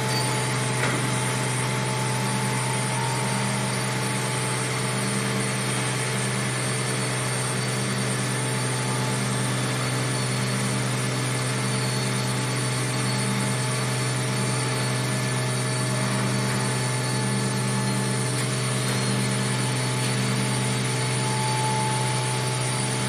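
Steady mechanical drone of V-process (vacuum) molding line machinery: a strong low hum with several steady tones above it and a slow throb that swells and fades about every second and a half.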